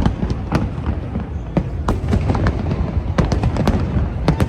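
Fireworks going off in many quick, irregular bangs over a steady low rumble, with music playing.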